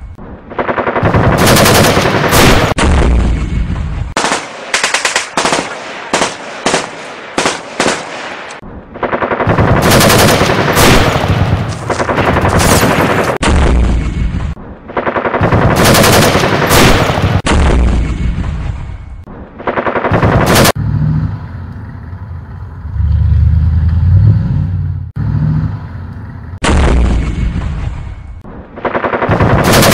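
Battle sound effects: machine-gun fire in long bursts, with a run of separate single gunshots between about four and nine seconds in, and low rumbling booms a little after the middle.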